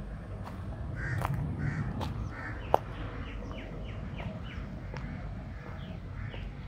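Crows cawing: a few harsh caws from about a second in, then fainter, quicker calls. A sharp click a little under three seconds in is the loudest sound. A steady low rumble runs underneath.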